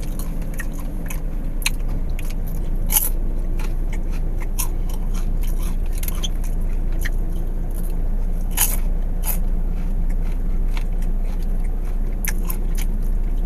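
Someone chewing caramel-coated cheese popcorn close to the microphone, with crisp crunching bites scattered throughout. A steady low hum of the car sits underneath.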